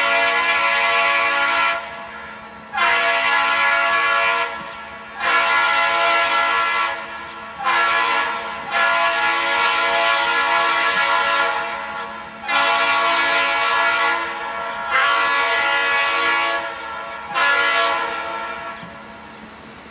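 Union Pacific diesel locomotive's air horn sounding a series of blasts, a chord of several steady tones: mostly long blasts of about two seconds with one short one, long-long-short-long, the grade-crossing warning signal, as the train approaches the crossing.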